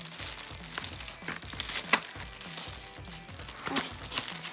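Clear plastic packaging crinkling and crackling as it is pulled open by hand, with the sharpest crackle about two seconds in and a few more near the end, over background music.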